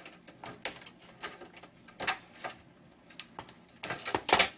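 Irregular sharp clicks and light knocks of plastic and metal monitor parts being handled and pried apart, with a louder rattling cluster near the end.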